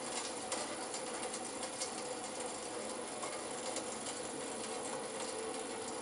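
Roll-In TF1420 vertical band saw running, its blade travelling steadily with an even mechanical whir and faint scattered ticks.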